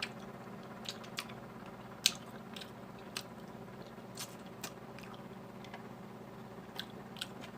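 A person chewing food close to the microphone: faint, scattered soft clicks and smacks of the mouth, the sharpest about two seconds in.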